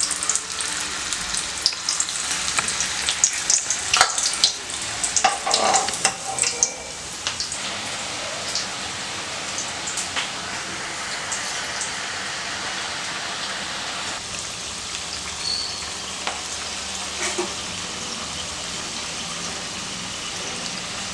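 Cabbage pakoda batter deep-frying in hot oil in a kadai: a steady sizzle, busy with sharp crackles and pops for the first six or seven seconds, then settling to an even sizzle.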